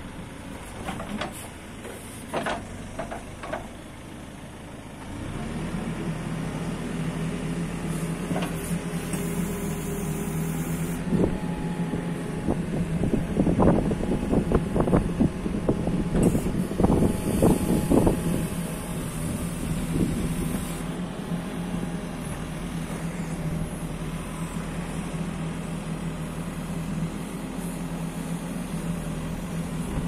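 MST M642 Plus backhoe loader's diesel engine running, picking up and getting louder about five seconds in as the hydraulic backhoe arm is worked. Clunks from the arm come through, along with two spells of high hiss.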